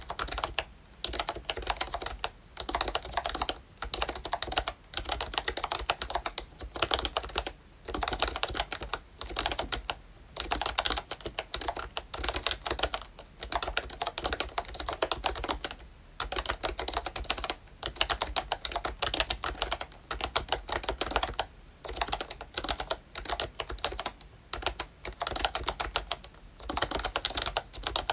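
Continuous typing on a ROYCHE Disney Mickey Mouse retro membrane keyboard with round typewriter-style keycaps: rapid key clacks in runs of a second or two, broken by brief pauses.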